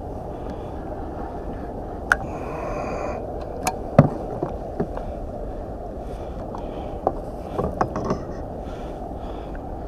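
Steady wind and water noise on a kayak, with a handful of sharp knocks and clicks, the loudest about four seconds in, and a brief high tone a little over two seconds in.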